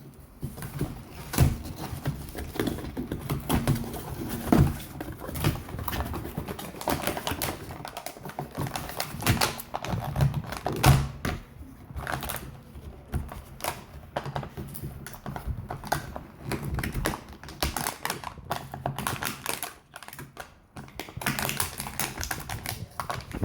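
Toy packaging being pulled and worked open by hand: cardboard and plastic handled in many irregular clicks, taps and rustles.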